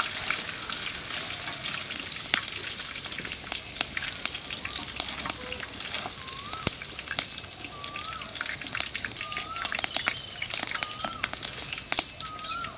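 Whole masala-coated chicken frying in hot oil: a steady sizzle with many sharp pops and crackles. A short rising chirp repeats every second or so from about a third of the way in.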